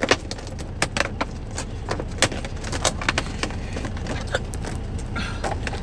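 Scattered light clicks, taps and rattles of small household items being handled and put away, over a steady low hum.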